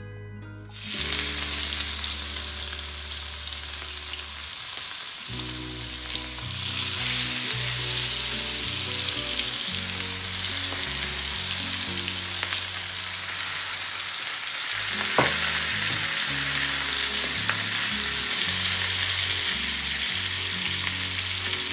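Chicken thighs sizzling in hot oil in a nonstick frying pan as they are seared. The sizzle starts about a second in and grows louder around six seconds in, then holds steady.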